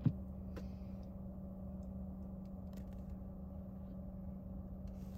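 Steady low hum of a parked car running, heard from inside the cabin, with one light knock against the windshield just at the start.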